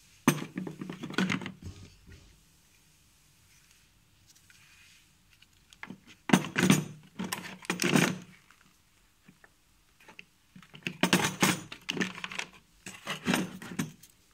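Clattering knocks of hard plastic cordless-drill parts (spare battery, charger and the drill) being handled and knocked against a moulded plastic carry case, in four short bouts.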